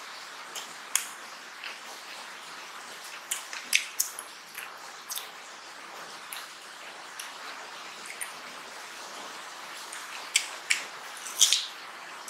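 Close-up eating by hand: scattered wet smacking and chewing clicks as rice and mutton curry are mixed with the fingers and eaten, in clusters about three to four seconds in and again near the end, over a steady faint hiss.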